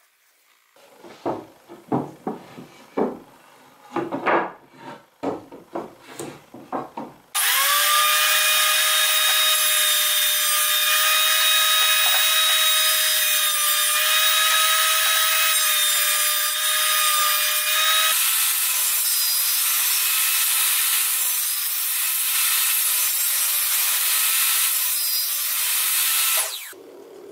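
Irregular scraping strokes, then a benchtop thickness planer starts suddenly and runs with a steady high whine. About ten seconds later the whine gives way to a rougher, wavering cutting sound, as if a board is feeding through, before stopping abruptly near the end.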